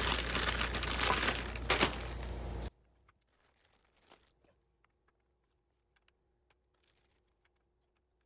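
Plastic packaging crinkling and rustling loudly, cutting off suddenly about three seconds in. After that come only a few faint clicks and taps.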